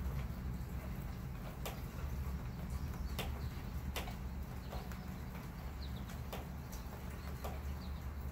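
Outdoor ambience under a stormy sky: a steady low rumble, sharp ticks roughly once a second, and a few faint short bird chirps.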